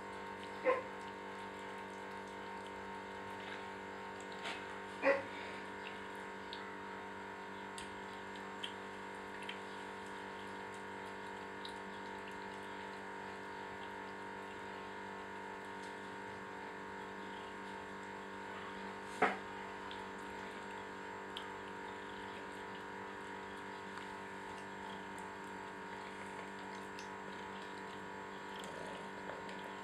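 Two Abyssinian cats eating from a stainless steel bowl: a few sharp clicks against the metal, the loudest about 19 seconds in, with fainter ticks between. A steady hum with several pitched tones runs underneath.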